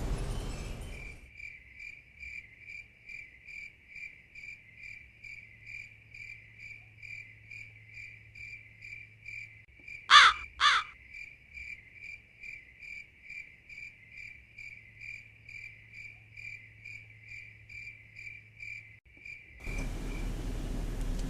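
Insect chirping in an even rhythm, about two chirps a second, all of the same pitch. Two loud, quick calls that sweep sharply downward in pitch cut in about halfway through.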